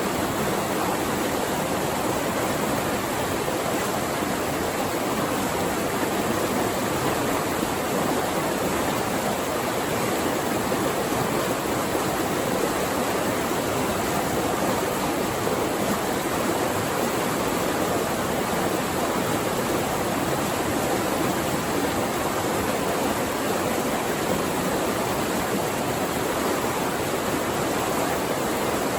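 Flowing water rushing steadily and evenly, with no breaks or changes.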